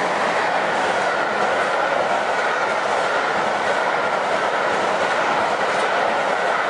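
A train running: a steady, even rumble and hiss with no breaks.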